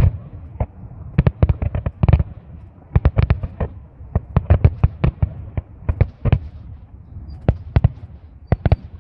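Fireworks going off: an irregular run of sharp bangs and cracks, many coming in quick clusters with short gaps between them.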